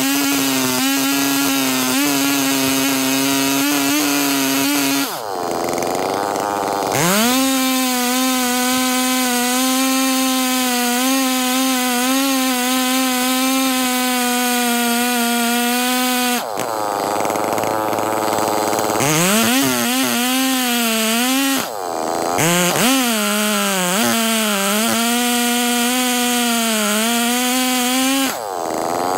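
Chainsaw on a rail-guided chainsaw mill ripping a slab along an oak log, its two-stroke engine running at full throttle under load. The engine note drops off about five seconds in and again for a couple of seconds past the middle, then rises back. Through the later part it wavers up and down as the saw works through the cut.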